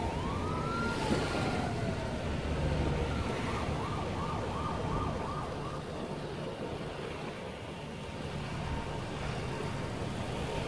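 Wind buffeting the microphone over the rush of water along a sailing yacht's hull, a steady noisy wash. Faint high tones glide up and down in the first few seconds, and a short run of quick repeated chirps comes a little later.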